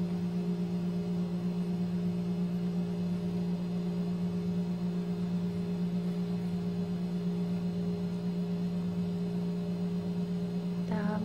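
Steady low electrical hum, with fainter higher tones held above it.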